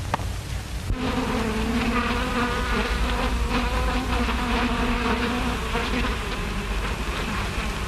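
Bee buzzing: a steady drone that starts about a second in and dies away near the end, over the hiss of an old film soundtrack.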